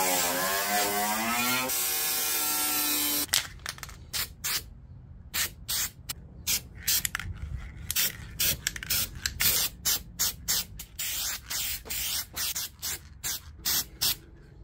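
Aerosol can of Steel It weld-through coating sprayed in many short hissing bursts, roughly two a second, from about three seconds in. Before that, a steady sound with a wavering pitch runs and stops abruptly.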